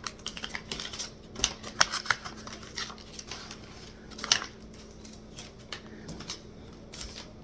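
Scattered light clicks and taps of handling noise, with the loudest about four seconds in, over a faint steady hum.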